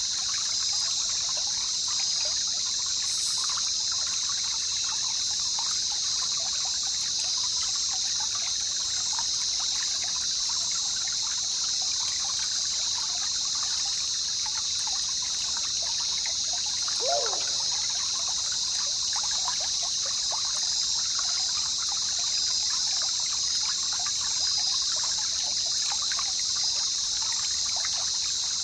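Jungle river ambience: water trickling and babbling steadily, with a constant high hiss over it. A single short gliding call stands out about 17 seconds in.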